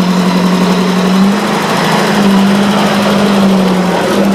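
Engine running steadily, a constant low hum that shifts slightly in pitch a couple of times.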